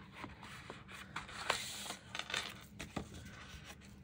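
Sticker sheets being handled and pulled from their pack: light rustling with small clicks and scrapes.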